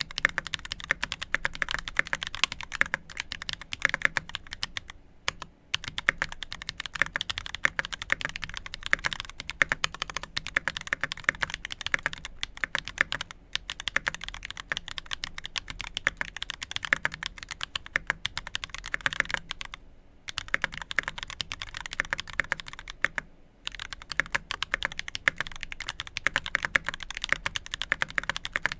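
Fast, continuous typing on a 75% mechanical keyboard with lubed YOK Holy Panda tactile switches in an aluminum plate, under GMK cherry-profile keycaps: a rapid stream of keystroke clicks broken by a few short pauses.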